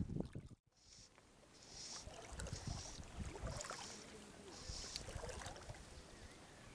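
Faint swishing and lapping of shallow river water around a wading angler, uneven and soft, with a brief dropout about half a second in.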